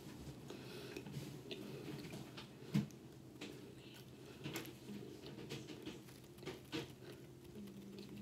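A person chewing a grilled roast beef and cheese sandwich with the mouth closed: faint wet mouth sounds with scattered soft clicks, the sharpest nearly three seconds in.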